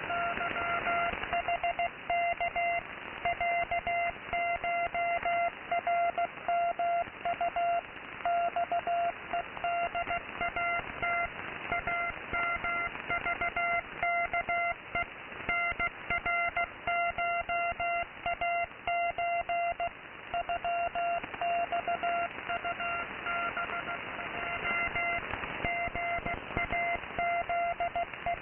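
Morse code from a shortwave station received in AM mode: a single steady tone keyed in short and long beeps, over continuous radio static. The keyed signal fades out for a few seconds about two-thirds of the way in, then comes back.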